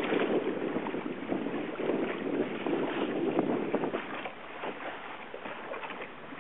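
Wind buffeting the microphone over water rushing and splashing along the hull of a Shaw 650 sport boat under sail. It is loudest in the first four seconds and eases after.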